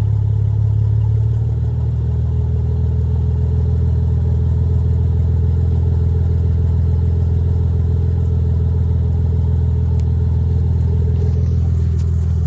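Audi 2.7-litre V6 idling steadily through straight pipes with the catalytic converters removed, an open, unmuffled exhaust note. The idle settles slightly lower about a second and a half in, and near the end there is a click and a rustle of handling noise.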